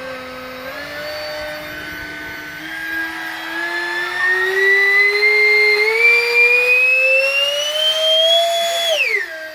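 Electric ducted fan of a Jepe Jets Mirage 2000 model jet, run up while held by hand for a static thrust test. Its whine climbs steadily in pitch and grows louder as the throttle is opened, then drops sharply near the end as it is throttled back.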